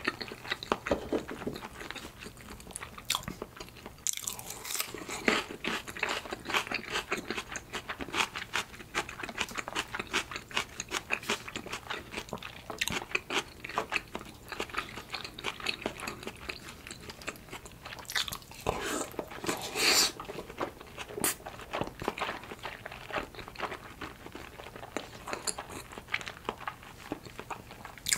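Close-miked chewing of salmon sushi: a dense run of small wet mouth clicks, with a louder noisy patch about two-thirds of the way through.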